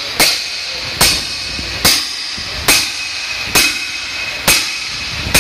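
Hammer blows on a cylinder liner, driving it into the bore of a Toyota 22R four-cylinder engine block: seven sharp, even strikes a little under a second apart.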